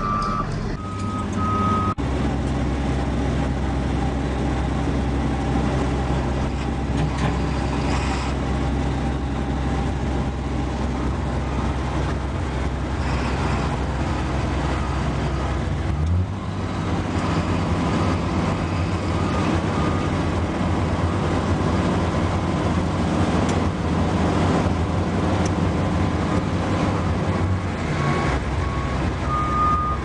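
Heavy diesel machinery running: a large wheel loader's engine working with a reversing alarm beeping for the first second or two. About halfway it changes abruptly to a Cat 740 articulated dump truck's diesel engine running steadily, and a reversing alarm beeps again near the end.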